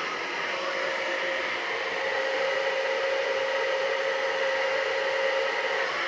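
UNIKARA ionic hair dryer running with its wave diffuser attachment fitted: a steady rush of blown air with a constant whine in it.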